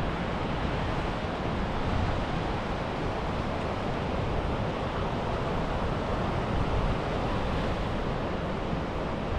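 Steady wash of sea waves on the beach, with wind rumbling on the microphone.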